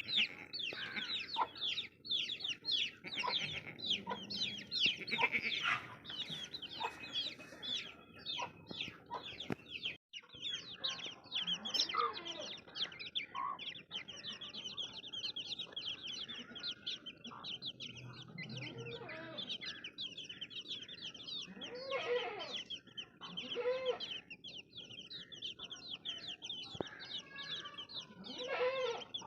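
A group of baby chicks peeping continuously, many short, high, downward-sliding peeps overlapping one another. A few lower calls come in during the second half.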